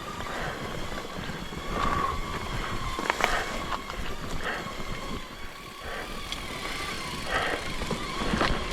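Bicycle riding slowly over rough forest single-track: tyre noise on dirt and debris with scattered rattles and clicks. A faint steady high whine runs underneath.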